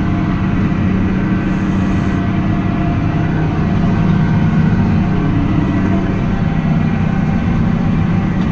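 Tractor engine running at a steady speed while pulling a hay rake.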